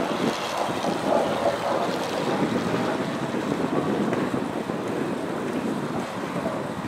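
Wind buffeting the microphone: a steady rushing noise that wavers in loudness.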